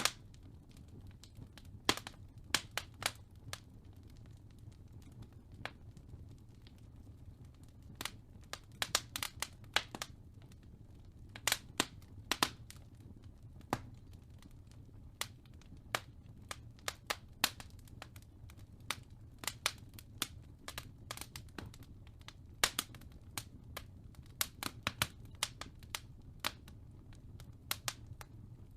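Fireplace fire crackling: irregular sharp pops and snaps, at times several in quick succession, over a low steady rumble.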